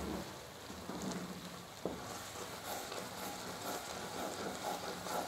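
Thick cashew and sugar-syrup mixture bubbling and sizzling in a pan over a low gas flame while it is stirred with a flat spatula, with a crackly hiss and a light knock of the spatula on the pan about two seconds in. This is the kaju katli mixture cooking down to a soft dough.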